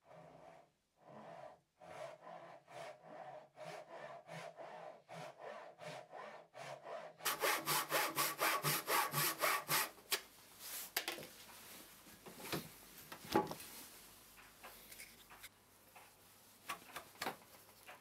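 Dozuki, a Japanese pull saw, cutting a wooden block by hand, roughing out the bulk of the waste: a run of back-and-forth strokes, about two a second at first. About seven seconds in the strokes turn quicker and louder for a few seconds, then fall to slower, scattered strokes.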